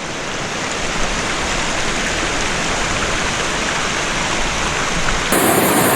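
Waterfall rushing: a steady wash of falling water that slowly grows louder, then jumps up suddenly and sounds brighter near the end.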